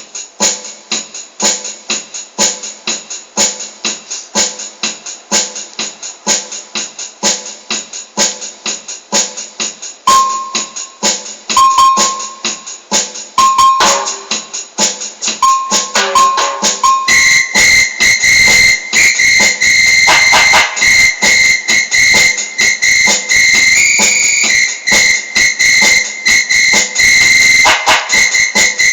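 Electronic keyboard playing a steady, evenly spaced percussion beat. From about ten seconds in, short keyboard notes are added over it, and from about seventeen seconds a shrill, held whistle-like tone joins and changes pitch a few times.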